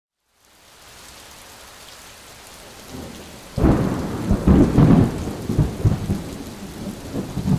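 Rain-and-thunder sound effect: steady rain fades in, then about halfway through a loud clap of thunder breaks and rolls on as a rumble in waves over the rain.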